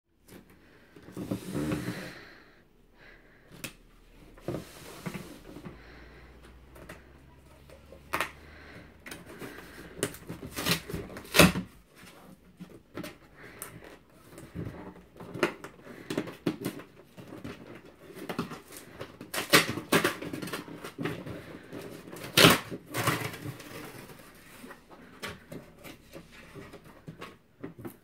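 A cardboard box being opened by hand: irregular scrapes, rustles and sharp taps of the cardboard flaps and packing being pulled about, with a few louder knocks about 11 and 22 seconds in.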